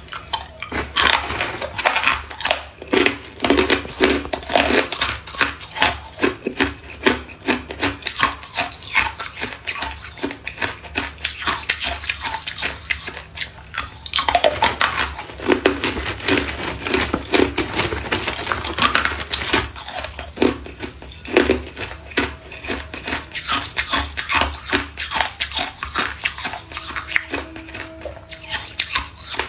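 Hard ice cubes being bitten and chewed, a rapid, irregular run of sharp crunching cracks as the ice breaks between the teeth, over a low steady hum.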